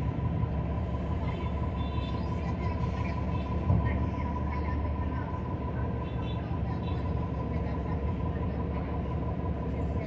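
Inside a New Flyer XD40 transit bus under way: steady low rumble of its Cummins L9 diesel and road noise, with a faint steady tone over it. A single thump a little under four seconds in, as from the bus going over a bump.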